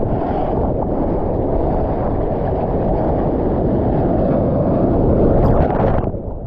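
Dull, steady rush of sea water and wind on a GoPro's microphone as the surfer floats in breaking surf, ending in a splash as water washes over the camera about six seconds in.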